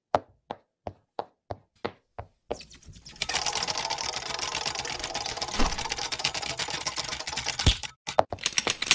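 Cartoon sound-effect clicks: separate sharp clicks about three a second, then from about three seconds in a fast, dense run of clicks that stops about eight seconds in, followed by a few separate clicks.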